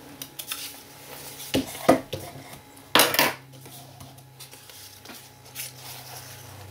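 A painted canvas being handled and set down on a paper-covered table, with a few sharp knocks, the loudest about two and three seconds in, and paper cutouts rustling as they are moved.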